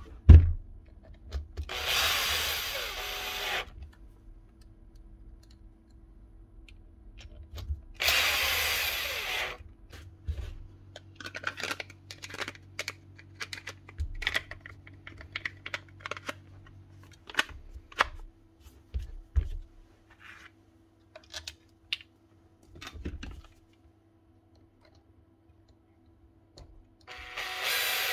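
Cordless drill-driver with a long hex bit running in three short bursts, about 2 s in, about 8 s in and near the end, driving the housing bolts of a demolition hammer. Between the runs come clicks and knocks of metal parts being handled, with a sharp knock right at the start.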